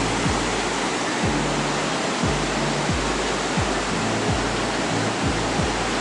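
Whitewater rapids of the Petrohué River rushing steadily, with a low beat of background music underneath.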